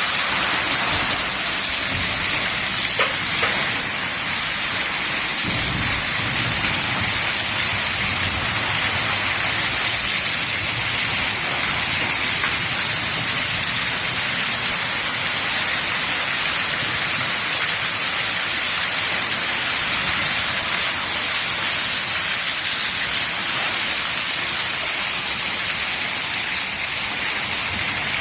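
Steady heavy rain falling: a continuous, even hiss strongest in the upper range, with one brief tap about three seconds in.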